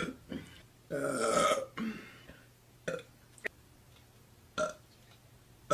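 A woman burping once, about a second in: a single belch lasting under a second. A few short, quieter clicks and mouth noises follow.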